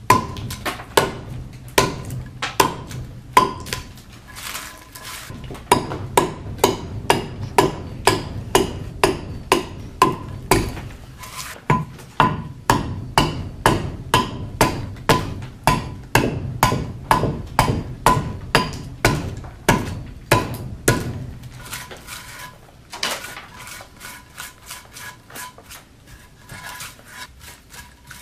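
Bowl adze chopping into the hollow of a green black walnut bowl blank: steady blows about two a second, each a sharp knock on the wood with a short ring. For the last several seconds the blows turn lighter and quieter.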